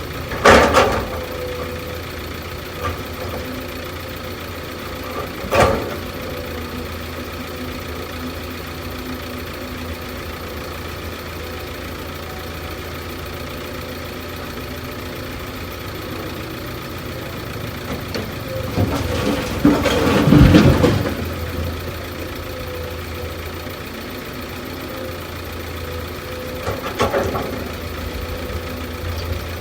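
Heavy diesel engine running steadily, with a sharp loud bang about half a second in and another near six seconds. A longer, louder rough stretch comes about two-thirds of the way through, and a smaller one follows near the end.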